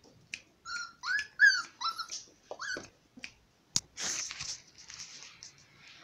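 A Yorkshire terrier-cross puppy yipping in play: a quick run of about six short, high yips in the first three seconds. A sharp click and a brief scuffling noise follow about four seconds in.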